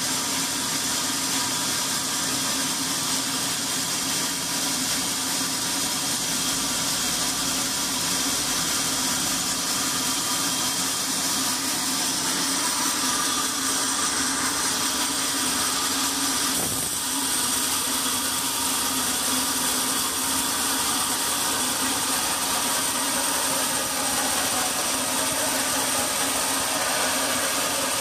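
Carriage band sawmill running steadily: a constant motor hum under a high hiss from the blade sawing timber. A single short knock comes a little past the middle.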